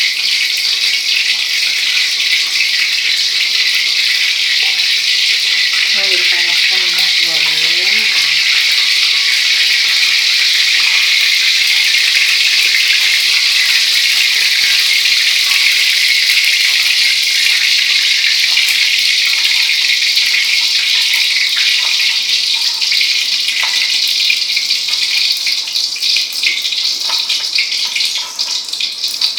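Cooking oil sizzling steadily in a pan on a gas stove. The hiss breaks up near the end as green onion is dropped into the wok. A voice is heard briefly about six seconds in.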